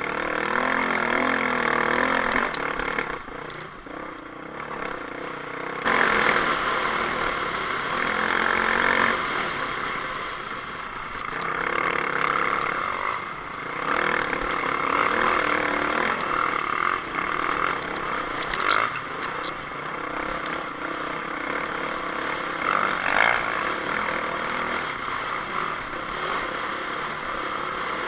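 Honda dirt bike engine running hard and revving up and down over rough, rocky trail, with wind rushing over the microphone and scattered sharp clicks.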